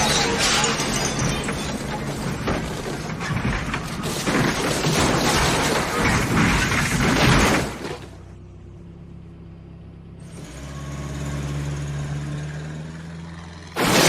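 Movie car-crash sound effects: a car smashing through things with glass shattering and many hard impacts for about eight seconds, then cutting off suddenly. A quieter stretch with a low steady hum follows, and another loud crash starts abruptly just before the end.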